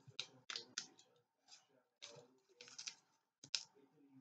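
Pen writing on origami paper: a run of faint, short scratchy strokes at an irregular pace, with light paper handling.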